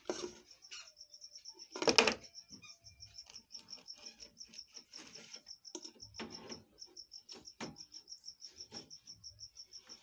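A cricket chirping steadily, a rapid high pulsing of about six pulses a second. Over it, a smartphone is knocked and set down on a hard case, the loudest knock about two seconds in, with softer taps later.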